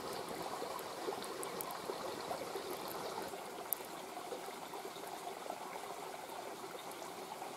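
Mountain river flowing steadily, with a few sharp crackles from a wood campfire, the loudest about three and a half seconds in.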